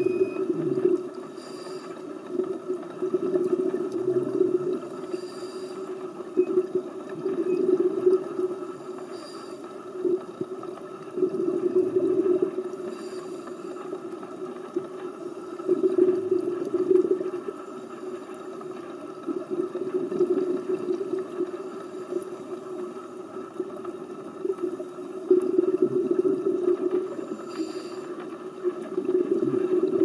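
Scuba diver breathing through a regulator underwater: exhaled bubbles gurgle out in a swell every four seconds or so, with a faint hiss of the inhale between them.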